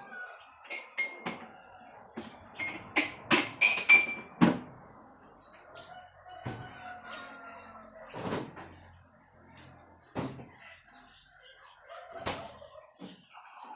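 Chicken clucking: a quick run of loud, short clucks building up over the first few seconds, then single clucks every couple of seconds.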